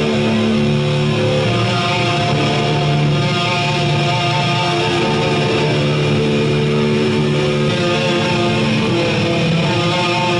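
Live black metal band playing loud: distorted electric guitar riffing over pounding drums, one dense unbroken wall of sound.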